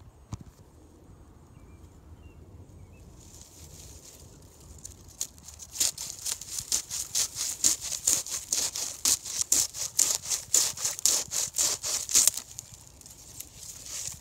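Fast, rhythmic scratchy rubbing close to the microphone, about four strokes a second, starting about five seconds in and stopping a couple of seconds before the end, after a single click just after the start.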